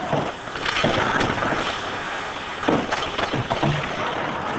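Ice hockey play: a steady scrape of skates on the ice, broken by several sharp knocks.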